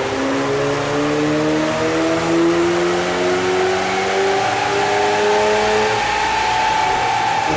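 Car engine pulling hard on a rolling road, its pitch climbing smoothly and steadily as the revs rise through a power run.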